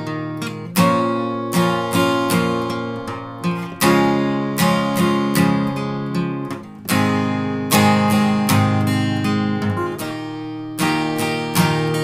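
Background music: an acoustic guitar strumming chords.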